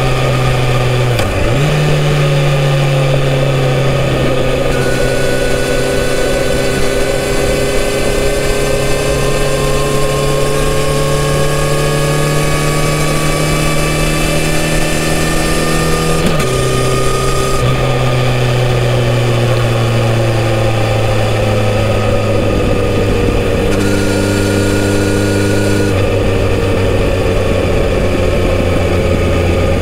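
Kawasaki Z900RS's 948 cc inline-four on its stock exhaust, heard from on the bike at expressway speed over steady wind rush. The engine note dips briefly about a second in, climbs slowly under steady throttle, drops with a gear change about halfway through, then sags gradually toward the end.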